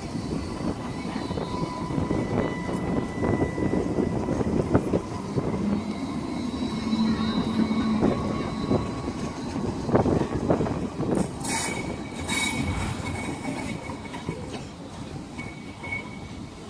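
Alstom Citadis X05 light-rail tram running at the stop: a steady rumble with wheel and rail clicks, and a short high-pitched wheel squeal about eleven seconds in.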